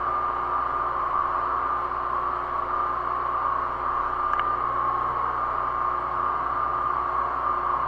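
High-pressure drain jetter running steadily while hot water is jetted into the blocked toilet drain pipe: a constant hiss with a steady whine.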